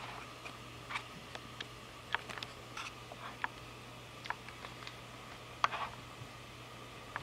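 Irregular light clicks and rustles, about a dozen short ones, from a cat pawing and nosing right at the camera, over a low steady hum.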